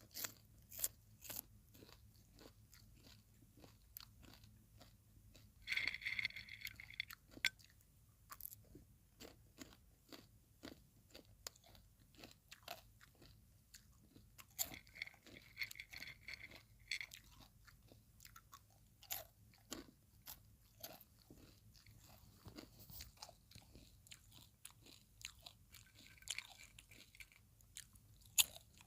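Close-miked mouth sounds of popcorn being chewed: many small, sharp crunches and clicks, with two louder, denser stretches about six and fifteen seconds in.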